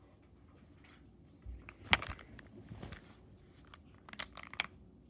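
Hard plastic toy-train parts being handled: a sharp click about two seconds in, some rustling just after, and a quick run of small clicks near the end.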